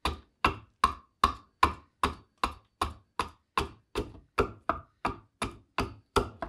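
Hand bowl adze chopping into green black walnut, a steady run of sharp strokes at about two and a half a second as it hollows out a bowl.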